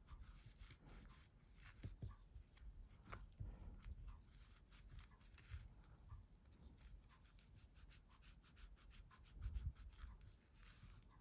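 Faint rubbing and light scratching of a wet wipe cleaning mobile-phone parts, with many small ticks throughout.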